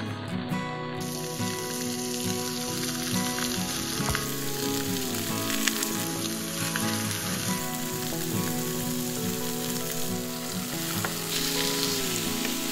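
Pork chops sizzling and frying on a griddle over a two-burner Coleman propane camp stove, a steady hiss throughout, with soft background music underneath.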